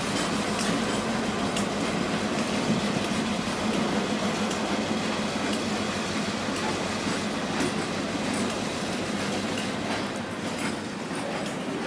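Freight train rolling slowly through a yard behind a Canadian Pacific diesel road-switcher locomotive. Steel wheels click irregularly over the rail joints and give the odd light squeal, over the steady hum of the locomotive's diesel engine.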